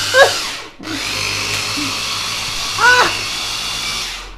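Small electric food chopper running. It stops briefly just under a second in, starts again and runs steadily until it cuts off near the end. Two short vocal cries sound over it, one at the start and one about three seconds in.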